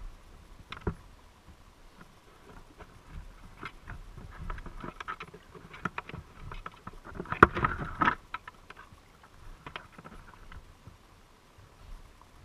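Scattered underwater clicks and knocks heard through a GoPro's waterproof housing inside a submerged crab trap, with a dense crackling cluster of clicks about seven seconds in.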